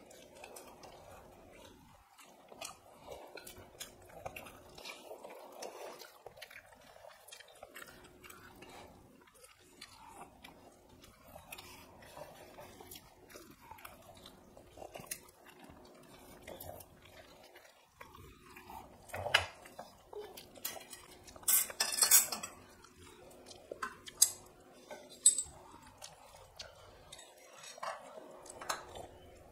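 Chewing and fingers mixing rice on stainless steel plates, with scattered small clicks. Past the middle come several sharp metal clinks and a brief clatter of steel dishes and a spoon.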